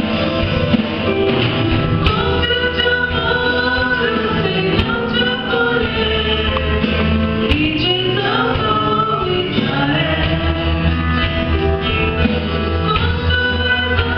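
A live gospel worship song: a band with drum kit, electric and bass guitars, acoustic guitar and keyboard plays steadily under sung vocals from a man and a woman.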